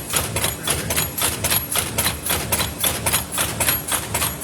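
Paper lid forming machine running, a steady mechanical clatter of regular strokes about three to four a second.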